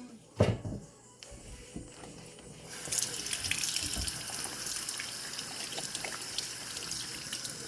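A couple of light knocks, then about three seconds in a kitchen faucet is turned on and water runs steadily into the sink.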